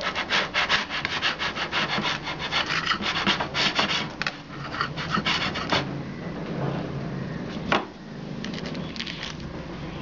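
A knife sawing back and forth through a baked loaf cake, its crust rasping under quick, rapid strokes for about six seconds before the cutting stops. A single sharp click follows about a second and a half later, with a few lighter strokes after it.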